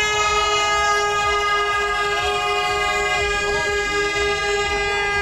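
Race starting horn blowing one long, steady blast that cuts off near the end, signalling the start of the marathon.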